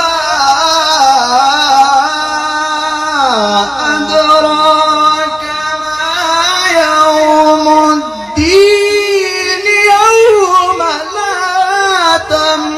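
A man reciting the Quran in the melodic qirat style, drawing out long ornamented notes that slide up and down. He takes a short break about eight seconds in, then starts a new phrase on a higher note.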